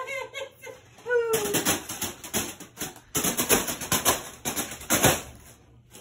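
Foil balloon being slapped again and again by spinning ceiling-fan blades: a rapid, irregular crinkling clatter from about a second in until near the end.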